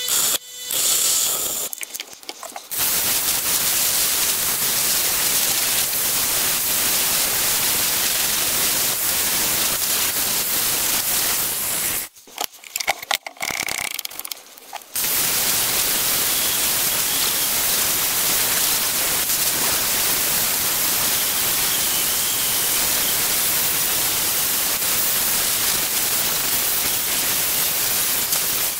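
Power grinders grinding the rusty steel blade of a butcher's cleaver: a steady, loud rasping hiss of an abrasive wheel on metal, in two long runs broken by a lull of about three seconds near the middle. A bench grinder's wheel is at work at the start, and a handheld grinder near the end.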